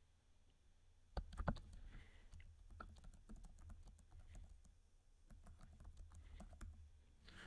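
Quiet typing on a computer keyboard: a quick run of keystrokes starting about a second in, with a short pause partway through before the typing resumes.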